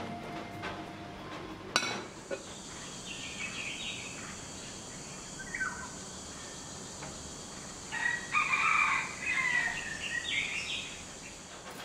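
Outdoor ambience of birds calling over a steady high hiss, with the loudest calls in a cluster from about eight to eleven seconds in. It is preceded by the tail of background music that cuts off with a click about two seconds in.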